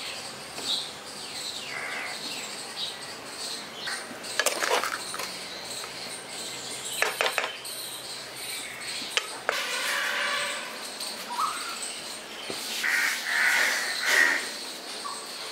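Birds chirping, with a few sharp knocks and scrapes of a spatula against the frying pan as the poha pulao is stirred.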